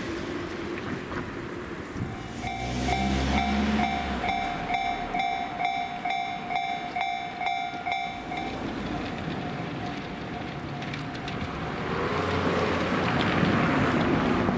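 Tobu 50000 series electric train running slowly along the track, with a low rumble a couple of seconds in and louder running noise near the end as the train comes close. For about six seconds in the first half, a beeping warning tone repeats about two and a half times a second.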